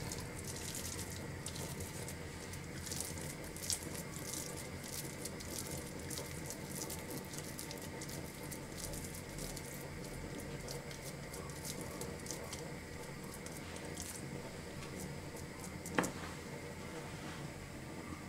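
Faint, steady hiss with a few soft clicks and wet handling noises as raw köfte mixture of minced meat and shredded cabbage is shaped by hand and set into a glass baking dish; one sharper click comes near the end.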